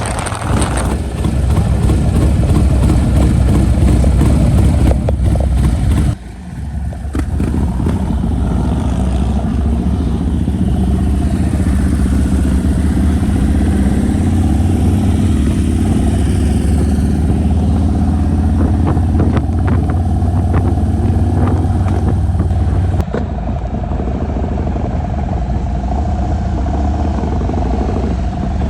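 Motorcycle engines running, with slow rises and falls in pitch. The sound changes abruptly twice, about six seconds in and again near the end.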